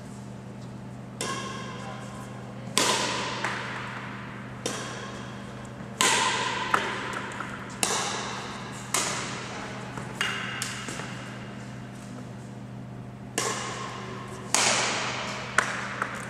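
Badminton rackets striking a shuttlecock again and again in a rally, about a dozen sharp, ringing pings roughly a second apart, echoing off the hard walls of a sports hall.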